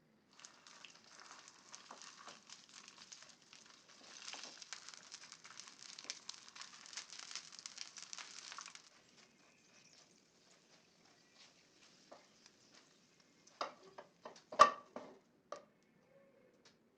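Ingredients being stirred in a bowl: a crackly scraping for about nine seconds, then several sharp knocks, the loudest about fourteen and a half seconds in.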